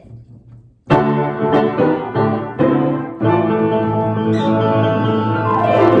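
Upright piano played, a short phrase of sustained notes and chords starting about a second in and still ringing at the end; the piano is out of tune, by its player's own account.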